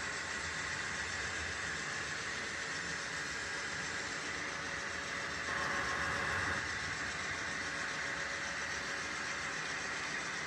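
HO scale model train running along the layout track, a steady rolling hiss and hum, briefly louder for about a second near the middle.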